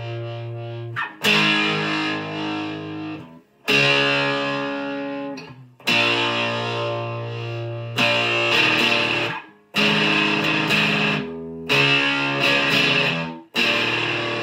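Electric guitar played as a slow chord progression: a new chord is strummed about every two seconds and left to ring, and some chords are cut short just before the next.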